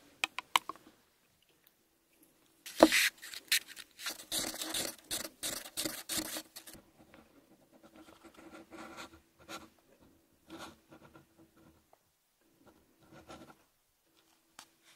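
Paper cups of melted gel wax being handled and pinched while the wax is poured into silicone molds: rustling and scraping of the paper, with a few light taps at the start and a sharp knock about three seconds in. The handling is busiest in the first half and sparser after that.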